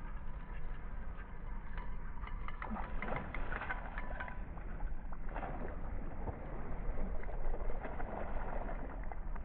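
Steady low rumble of wind on the microphone by an open river, with scattered light clicks and ticks over it.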